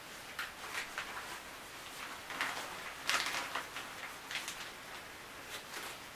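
Plastic shower curtain rings clicking and scraping while the curtain and liner fabric rustles, as the rings are pushed through the holes; a scatter of short clicks and scrapes with no steady rhythm.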